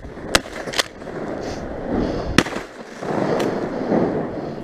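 Footsteps crunching through snow and brushing through sagebrush, with a few sharp clicks and snaps from the shotgun and twigs.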